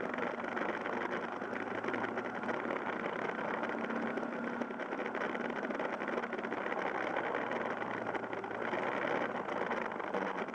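Yamaha Fazer YS250 single-cylinder engine running steadily on the move, mixed with steady wind noise over the microphone.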